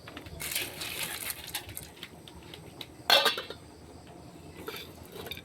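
Metal cookware clatter: a spoon stirring rice in a cooking pot, with scraping in the first second or so and one loud clank of metal on metal about three seconds in, then a few lighter clinks near the end.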